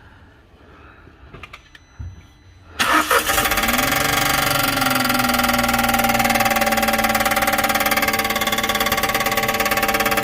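Volkswagen T-Cross engine cranked and catching about three seconds in, then idling steadily, its speed dipping and settling just after it starts.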